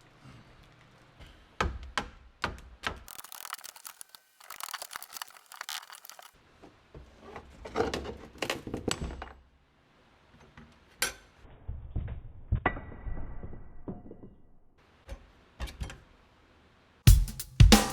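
Irregular knocks and thunks with a stretch of hissing, scraping noise a few seconds in, typical of hand work on a boat deck. Music with a drum kit comes in near the end.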